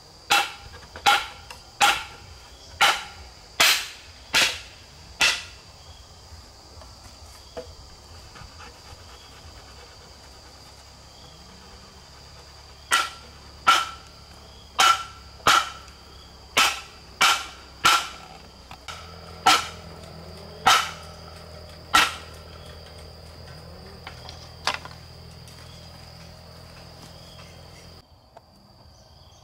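Repeated sharp strikes of a hand tool on wood, about one a second, each ringing briefly: a run of about seven, a pause of several seconds, then about ten more.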